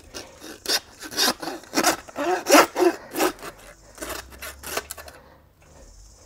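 Hand bone saw with a metal frame cutting through a lamb carcass's backbone and ribs to take off the forequarter: rasping back-and-forth strokes about two a second, quickening before they stop about five seconds in as the cut goes through.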